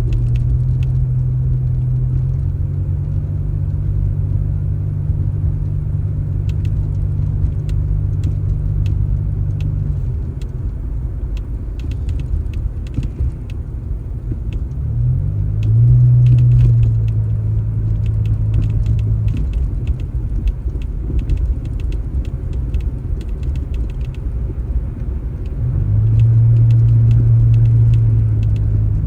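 A vehicle engine running at a low, steady pitch that twice rises and grows louder for a few seconds, with scattered light clicks and rattles.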